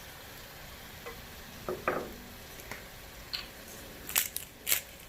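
Cubed chicken breast frying in oil with onion and garlic in a pot, giving a steady sizzle. A few knocks come about a second or two in, and a run of sharp clicks near the end.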